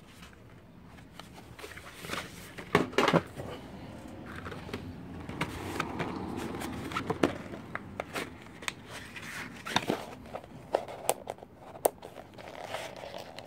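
Plastic blister packaging of a J-B Weld twin-tube epoxy pack crinkling as it is handled and opened, with sharp snaps of the plastic, the loudest about three seconds in and a couple more near the end.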